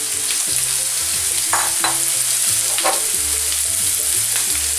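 Diced red peppers sizzling in hot olive oil in a frying pan, a steady hiss, with two short scraping sounds about a second and a half and three seconds in.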